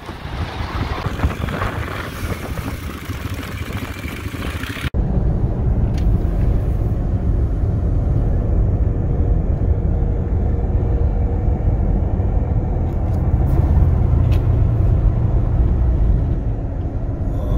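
ATV engine running while being ridden. About five seconds in the sound changes abruptly to a louder, deeper, steady drone.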